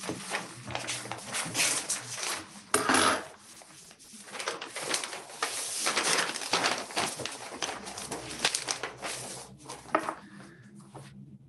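Paper rustling, crinkling and tearing as a sealed bid envelope is opened and its pages handled, with small clicks and a louder burst of crinkling about three seconds in.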